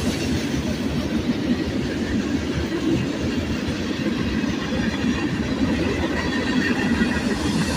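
Steady rumbling noise, strongest low down, with no clear rhythm or tone.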